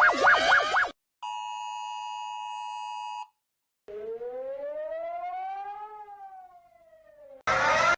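A string of emergency alert tones. A fast electronic warble cuts off about a second in. Then the steady two-note Emergency Alert System attention tone sounds for about two seconds, followed by a siren tone that rises for two seconds and then falls away. A loud new alarm sound starts just before the end.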